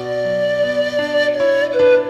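Instrumental music with a flute playing a slow, held melody over sustained accompaniment.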